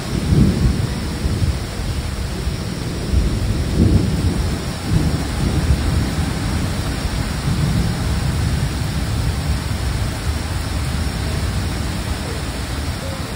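Heavy rain pouring down, with a low rumble of thunder that swells and fades several times.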